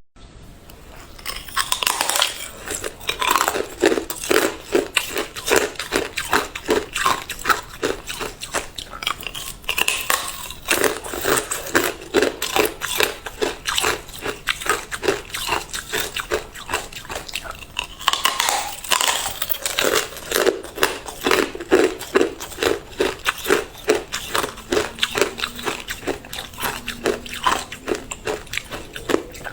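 Hard clear ice being bitten and chewed: a dense, uneven run of cracking crunches that keeps going without a break.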